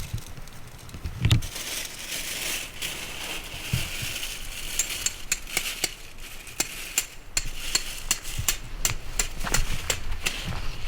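Campfire crackling, with a soft hiss early on and many sharp pops and snaps, more of them in the second half.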